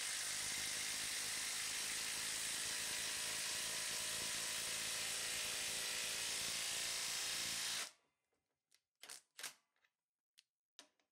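Milwaukee M18 FUEL Stubby cordless impact wrench hammering steadily as it drives a hex-head lag screw down into a wooden post. It cuts off suddenly about eight seconds in as the screw head seats, followed by a few light clicks.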